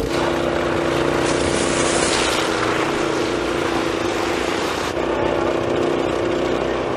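Snowblower's small petrol engine running steadily, with a loud hiss over it.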